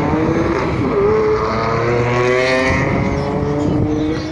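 Car engine at full throttle, accelerating hard down a drag strip. Its pitch dips briefly about a second in, as at a gear change, then climbs steadily.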